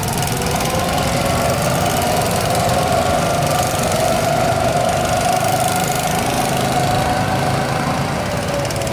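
Go-karts running laps on a track, their small engines droning steadily with a wavering pitch as they speed up and slow down.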